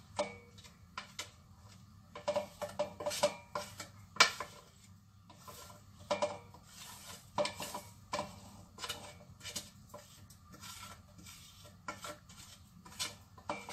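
A plastic spoon scraping and tapping against a plastic plate and the rim of a steel mixer-grinder jar as grated coconut, spice powder and garlic are pushed into the jar. Irregular light clicks and short scrapes, the sharpest click about four seconds in.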